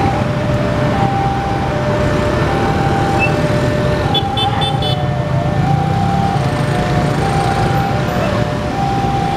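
Level-crossing electronic alarm sounding a repeating two-tone high-low warning, over the running engines of cars and motorbikes. A vehicle horn gives a short toot about four seconds in.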